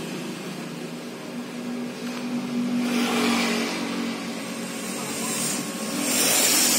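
Canon iR5000 photocopier running as it reads the originals: a steady motor hum that rises slightly in pitch about two seconds in, with bursts of hissing noise about three seconds in and again near the end.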